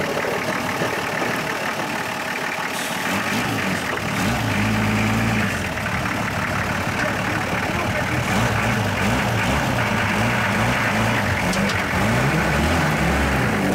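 Engine of a lifted off-road 4x4 on big mud tyres crawling slowly over a steel mesh ramp. It runs at low revs that begin rising and falling about four seconds in, over a steady hiss of outdoor noise.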